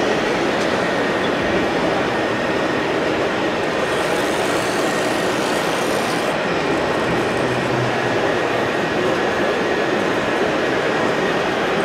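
Steady, loud din of RC machinery working amid hall noise, with a faint steady high whine running under it.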